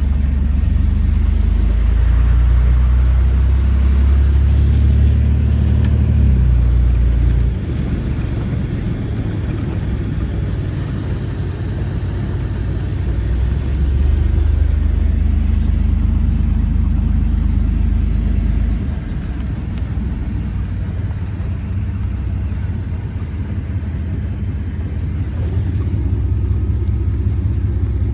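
A car driving, with a steady low rumble of engine and road noise. It is louder for the first several seconds, eases, swells again about halfway through, then eases once more.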